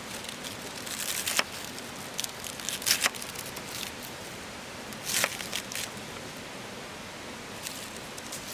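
Steady rushing of a river, with three short bursts of crinkling and rustling handling noise, about one, three and five seconds in.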